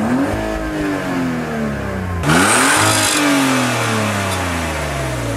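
A car engine free-revving while parked, its pitch climbing and then slowly dropping. About two seconds in it cuts abruptly to a second, slightly louder rev that rises and falls again.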